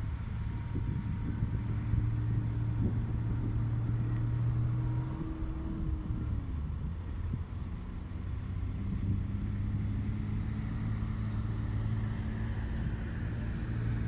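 Diesel engines of a Caterpillar hydraulic excavator and a dump truck running steadily as coal is loaded. The engine note drops about six seconds in and picks up again a couple of seconds later.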